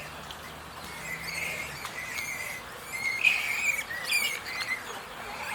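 Newborn mini piglets squeaking and squealing, a run of short high-pitched cries with a few quick chirps, loudest just past the middle.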